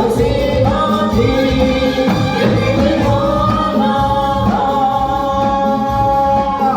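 Music: a held, gliding melody line over a steady, evenly repeating beat, with no words sung.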